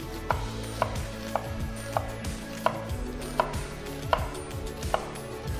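Chef's knife chopping a red onion on a wooden cutting board: about eight slow, even knife strokes, one every 0.7 seconds or so, each a sharp knock of the blade on the board.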